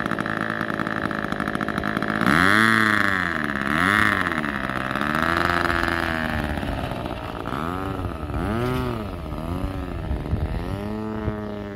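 Dauntless RC model plane's 30cc two-stroke gas engine running as the plane taxis, its pitch rising and falling several times as the throttle is opened and eased back.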